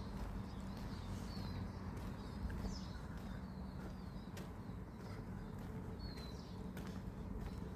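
Footsteps of someone walking, sharp steps about once a second, with small songbirds chirping several times over a steady low hum.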